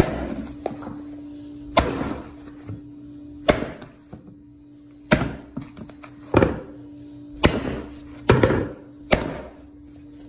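Bread dough being kneaded by hand in a basin: eight dull thuds, one every second or two, as the dough is pressed and pushed down, each with a brief squishing rustle, over a steady low hum.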